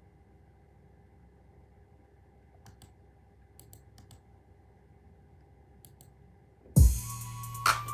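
A few faint, scattered clicks of buttons on a beat-making controller over quiet room hum, then near the end a loud electronic hip-hop beat with deep, falling kick-drum hits starts playing.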